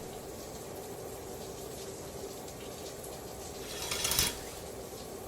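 Shower running steadily, an even spray of water, with one short louder burst of noise about four seconds in.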